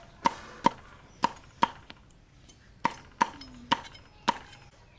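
Knife chopping peeled pumpkin into chunks on a thick wooden chopping block. About eight sharp knocks of the blade striking the board come in uneven pairs.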